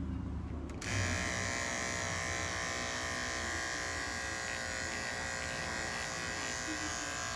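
Electric dog-grooming clipper running with a steady buzz while shaving a dog's coat; the sound is muffled at first and comes in full and bright about a second in.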